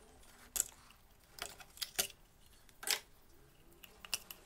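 A scattering of light clicks and taps from hands handling parts in a car's engine bay, the sharpest about half a second in, at two seconds and near three seconds.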